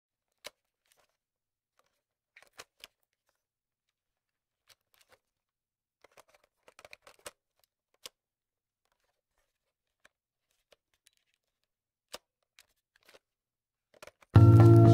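Sparse, faint clicks of a computer mouse and keyboard. Near the end, vaporwave backing music starts abruptly and loudly.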